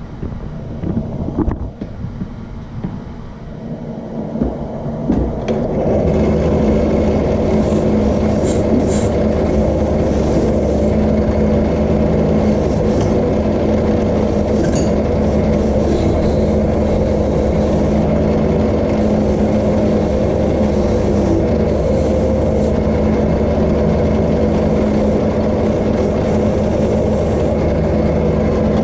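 Drill press with a wire wheel starting up about five seconds in and then running steadily, brushing the forged steel icicle to clean and brighten it. A few knocks of handling come before it starts.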